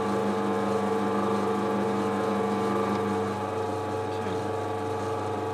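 Small metal lathe running steadily while a twist drill feeds into a spinning stainless steel workpiece, a constant hum of several held tones. One lower tone drops out about three and a half seconds in.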